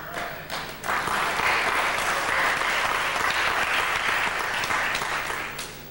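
Audience applauding, a dense clapping that swells about a second in and dies away near the end.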